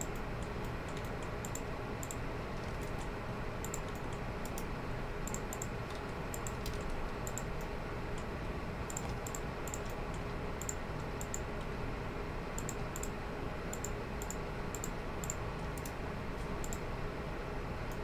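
Computer keyboard keys and mouse buttons clicking at an irregular pace, as Blender shortcuts are typed, over a steady background hiss.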